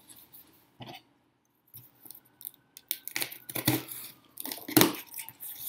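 Cardboard shipping box being cut open and unpacked by hand: a run of sharp crackles and scrapes of cardboard, tape and packing material, loudest near the end.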